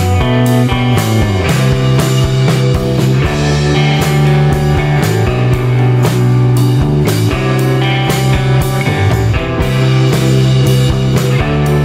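Rock music with guitar and drums playing to a steady beat.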